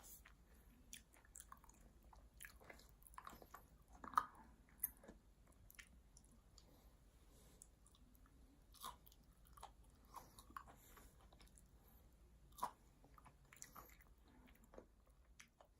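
A person chewing food close to the microphone, quiet wet mouth sounds with scattered crunchy bites; the sharpest bites come about four seconds in and near thirteen seconds.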